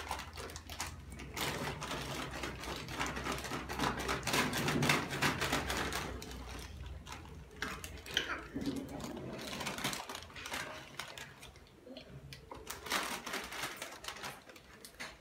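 Irregular light clicks and rustling, coming thick for the first ten seconds and thinning out after, over a steady low hum.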